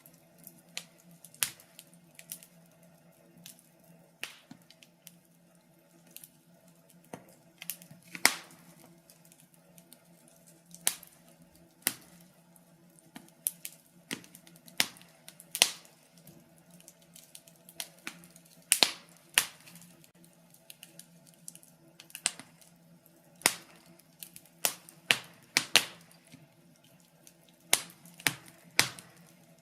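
Wood fire in a fireplace crackling, with sharp pops and snaps at irregular intervals, some louder than others, over a faint steady hum.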